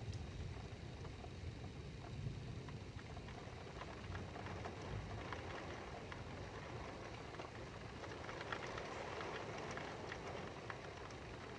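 Steady rain falling during a thunderstorm, with scattered drop ticks, swelling slightly near the end.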